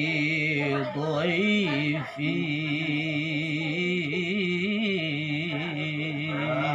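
A man chanting Quran recitation (mengaji) in a slow melodic style, holding long notes with wavering ornamented turns. Two brief breaks for breath come about one and two seconds in.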